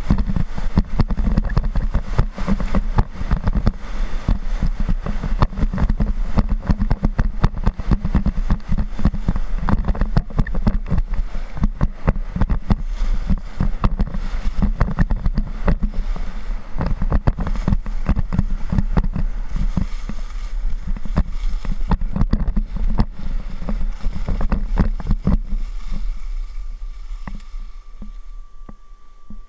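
Wind buffeting a helmet camera's microphone, with skis scraping and chattering over groomed snow at speed. It quietens over the last few seconds.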